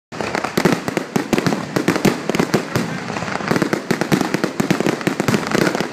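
Fireworks finale: a dense barrage of aerial shell bursts, several bangs a second overlapping one another without a pause.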